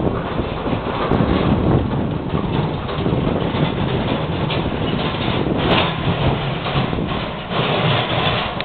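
Steam locomotive running as it approaches along the track, a continuous heavy mechanical rush with one sharp click about halfway through.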